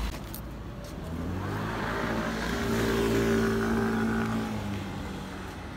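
A car passing close by on the street: its engine hum and tyre noise swell, peak about three seconds in, then fade away, the pitch dropping slightly as it goes.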